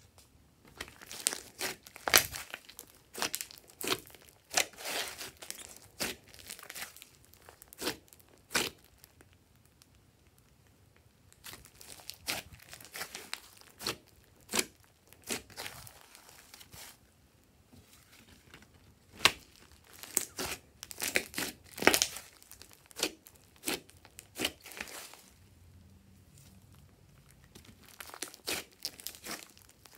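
Hands squeezing and kneading a large mass of glossy slime, which gives off irregular clusters of sharp clicks and crackles as air pockets in it pop. There are a few short quiet pauses between handfuls.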